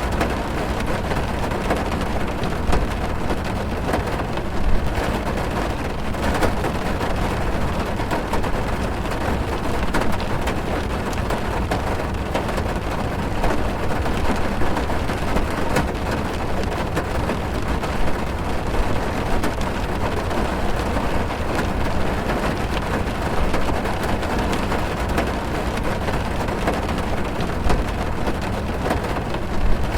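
Heavy rain falling on a car's roof and windows, heard from inside the car: a dense, steady patter of drops with a few louder single hits scattered through it.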